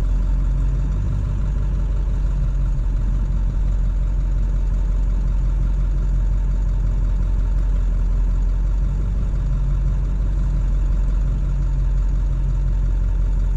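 Steady low drone inside the cab of a Ford truck with a 7.3 Powerstroke turbo-diesel V8, driving at an even speed: engine and road noise with no revving.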